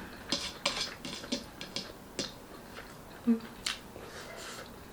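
Close-miked eating sounds: wet mouth smacks and chewing clicks, irregular and a few to the second, with a brief hummed 'mm' about three seconds in.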